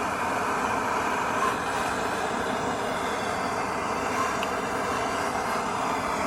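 Steady rushing noise as the mud-clogged pigtail tube of the heating system is being flushed out.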